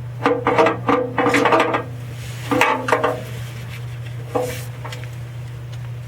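Metal parts and tools clinking and clattering in short bursts, loudest in the first two seconds, again about two and a half seconds in and once more near the middle, over a steady low hum.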